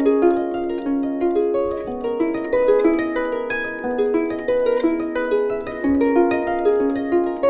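Solo harp music: a quick, continuous run of plucked notes moving in a repeating pattern, with no singing.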